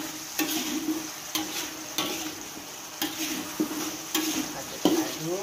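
A spatula scraping and stirring ground spice paste that sizzles in a wok on high heat, the water in the paste cooking off as it fries down. The strokes come roughly once a second over a steady sizzle.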